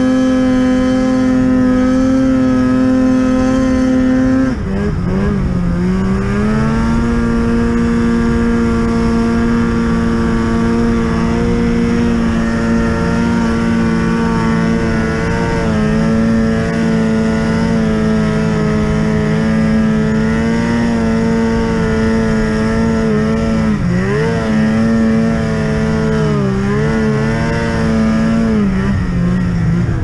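Polaris Axys snowmobile engine running at high, steady revs. The pitch drops sharply about four seconds in as the throttle eases, then climbs back and holds, with two more short dips near the end.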